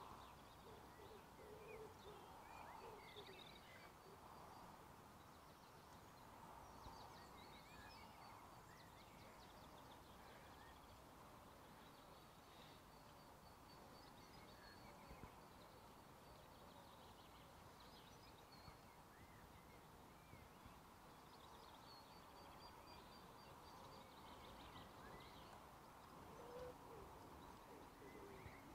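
Faint quiet outdoor ambience of birds: scattered high chirps, and a low repeated cooing call near the start and again near the end.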